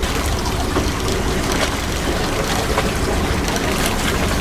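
Steady noise on a small boat on the water: a low rumble under an even hiss, with faint scattered crackles.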